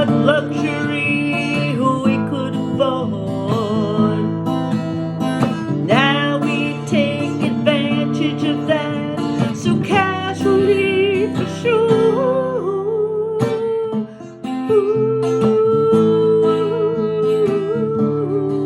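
Acoustic guitar playing an instrumental passage of a folk-style song, strummed chords with a wavering melody line held over them; the playing drops briefly about two-thirds of the way through.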